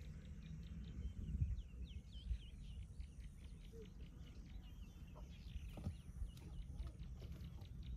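Birds calling with short swooping chirps, repeated in runs, over a steady low rumble. A dull knock comes about a second and a half in.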